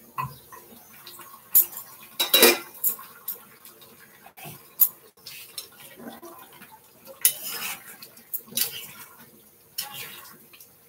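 Metal pot lid and spoon clattering against a cooking pot of chicken curry as it is uncovered and stirred, with irregular sharp clinks and scrapes. The loudest clatter comes about two and a half seconds in.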